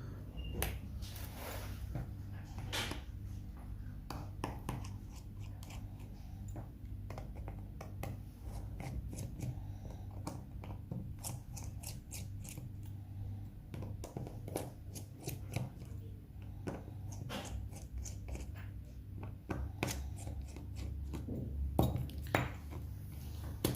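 Scattered small clicks and taps of hand tools working on a smartphone's opened plastic housing and internal plates, over a steady low hum.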